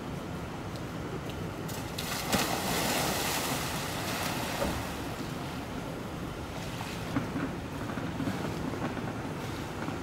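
A hippopotamus going into a pool: a splash about two seconds in, then water churning and sloshing, over a steady background hiss.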